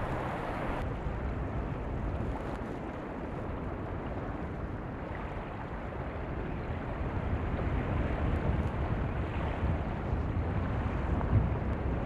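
Wind buffeting the microphone as a low rumble, over the steady wash of shallow sea water at the shore; the gusts grow stronger in the last few seconds.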